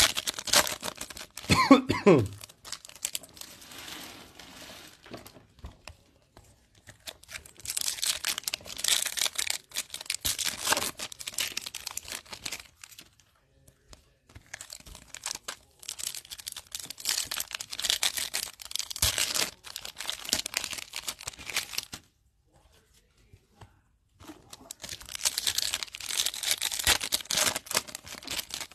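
Foil trading-card pack wrappers being torn open and crinkled by hand, in four bursts of a few seconds with quieter pauses between them. A short sound falling in pitch about two seconds in.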